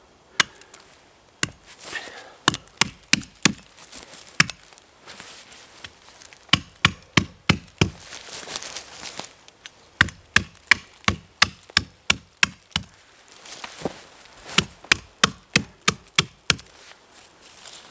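Axe chopping into a pine trunk: a string of short, sharp strikes in runs, about two a second, lightly scoring marks to line up the back cut with the face cut.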